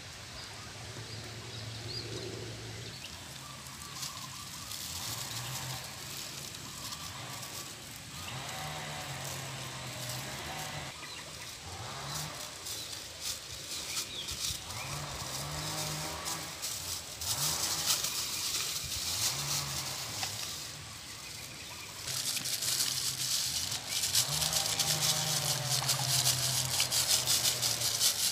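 Low, muffled voices in the background, then, from about three-quarters of the way through, a plastic bag crinkling and rustling loudly as it is handled.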